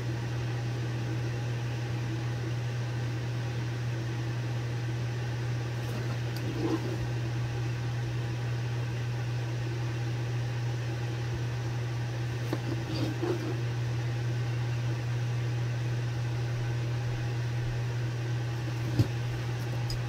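Steady low electrical hum with a faint even hiss, with a few faint small sounds about six seconds in and again around twelve to thirteen seconds.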